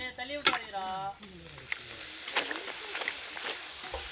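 Appalam (papad) frying in hot oil: a steady sizzling hiss with scattered crackles, starting about a second and a half in, with a voice briefly at the start.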